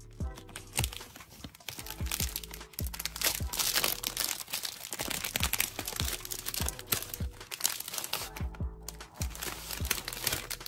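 Plastic wrapper of a Peeps marshmallow bunny pack crinkling as it is handled, over light background music with a steady beat.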